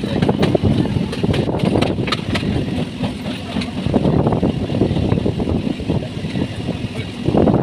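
Local electric train running along the track: a steady rumble with irregular clacks and rattles from the wheels and carriage.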